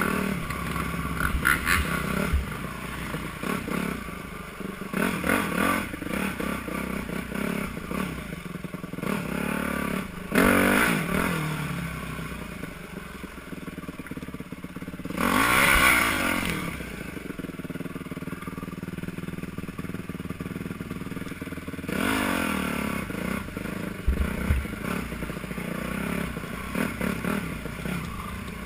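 Yamaha YZ250F dirt bike's four-stroke single-cylinder engine running under a rider on a trail, the throttle opened and closed so the pitch rises and falls, with louder bursts of revving about ten and fifteen seconds in and again about twenty-two seconds in. A few sharp knocks and clatter come through over the engine.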